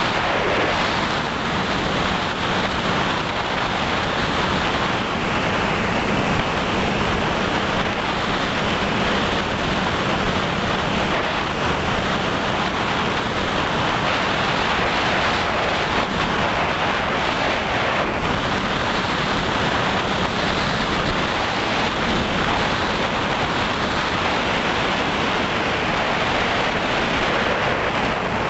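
Steady rushing noise with a faint hum underneath: wind and propeller noise on the FPV aircraft's onboard camera microphone in flight.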